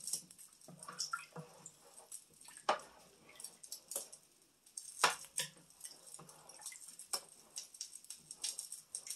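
Irregular small pops, clicks and knocks from pots on an electric stovetop: a wooden spoon stirring soup in an enamel pot, and water in a steel pot close to a rolling boil.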